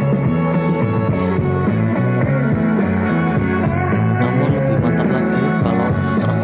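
Rock music with guitar played loud through a loudspeaker cabinet driven by a homemade 150-watt OCL power amplifier wired without a circuit board: a playback test of the finished amplifier.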